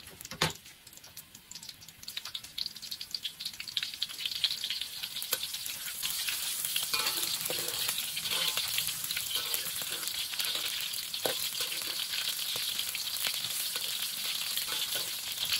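Sliced onions frying in hot oil in a metal wok, the sizzle building over the first few seconds and then holding steady. A metal spatula stirring them scrapes and taps against the pan now and then.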